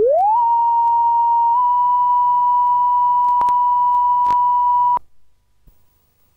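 Line-up test tone under a videotape programme clock: a steady high-pitched beep that slides up in pitch at the start as the tape comes up to speed, then holds, with two brief clicks, and cuts off abruptly about five seconds in as the countdown reaches ten.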